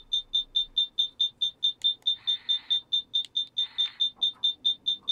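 Mattel Ghostbusters PKE meter prop replica beeping: a steady run of short, high-pitched electronic beeps, about four or five a second. Brief faint mechanical noises come in around the middle.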